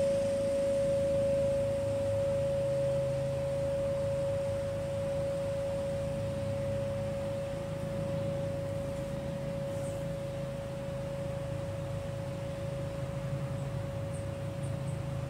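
Tuned metal tube chime ringing on after a strike: one clear, pure tone that slowly fades. A low steady hum sits underneath.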